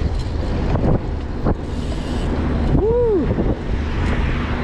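Wind buffeting the microphone over the rumble of a BMX cruiser's tyres on asphalt, ridden at speed. About three seconds in, a short tone rises and falls.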